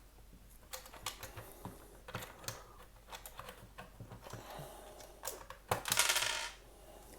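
Plastic phone pry tools clicking and scraping against the pressed-together plastic housing of a Cisco Meraki MR46 access point as the case is worked open, with a louder, longer scrape near the end.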